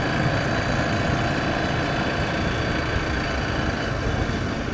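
Honda four-wheeler's engine running steadily while being ridden.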